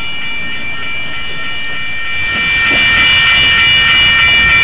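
Level-crossing signal bell ringing steadily as a streetcar goes by on the track, with a low rumble of the car underneath; the ringing grows louder about halfway through.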